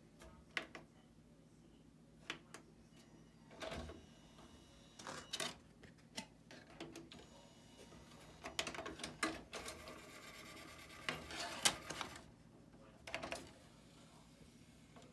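RCA CDRW120 CD recorder's motorised disc tray working: a tray whirring and clattering as it slides open and shut, with clicks and knocks from the buttons and the tray mechanism. The longest stretch of mechanical whirring comes in the middle.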